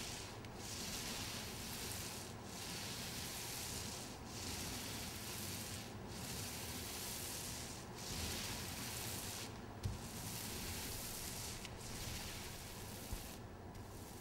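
Long rubbing strokes against a surface, one about every two seconds, each a hiss with a brief break before the next.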